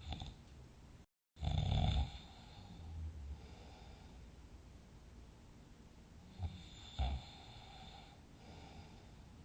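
A sleeper snoring, two breath cycles: a loud snore about a second and a half in, then a softer breath. About six and a half seconds in comes a short sharp catch, then another loud snore with a softer breath after it. The sound cuts out completely for a moment just after the start.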